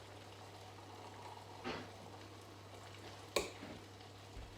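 A pot of sauce cooking quietly on the stove over a steady low hum, with two light kitchen knocks, a soft one a little under two seconds in and a sharper one about three and a half seconds in.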